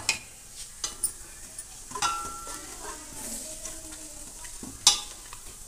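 Cumin seeds sizzling in hot oil in a metal pot while a steel ladle stirs them, clinking against the pot several times. The loudest knock comes near the end.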